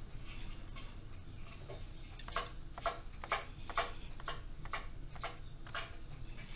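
A run of light, evenly spaced clicks or taps, about two a second, starting about two seconds in, over a steady low hum.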